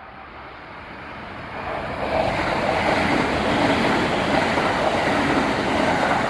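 Kintetsu electric train approaching and running past, its wheel-and-rail noise building over the first two seconds, then holding steady and loud.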